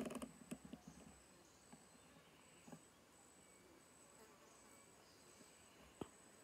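Faint insect chirping: a thin, high-pitched pulse repeated about every half second. A few clicks and knocks come in the first second, and a single sharp click comes about six seconds in.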